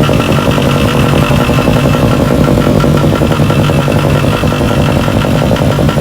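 A motor or power tool running steadily and loudly, with a fast even pulsing and a steady pitch throughout.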